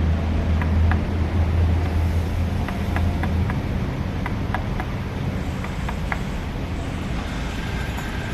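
A low steady motor hum that stops about three and a half seconds in, over a constant low rumble, with scattered light clicks and taps.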